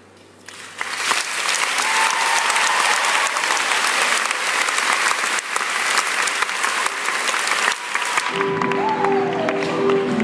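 Theatre audience applauding and cheering, swelling from quiet just after a choir's final chord. About 8 seconds in, the accompaniment for the next song starts under the clapping.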